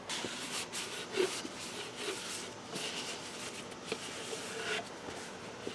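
Faint handling noises: rustling with a few light taps and clicks scattered through.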